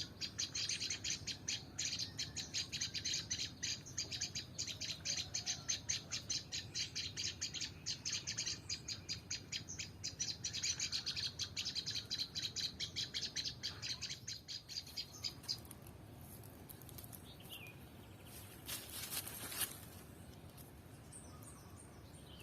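A small bird's high chirps, repeated fast and evenly at about six a second, stopping about fifteen seconds in. A short rustling hiss comes a few seconds later.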